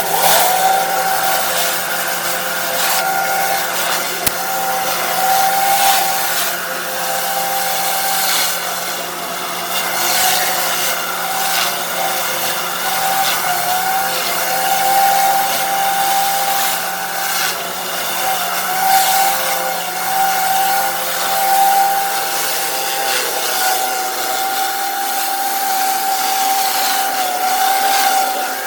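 Pressure washer cleaning concrete: a steady, high whine over a continuous hissing water spray.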